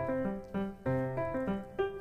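Background piano music: a melody of separate notes over a slower low bass line.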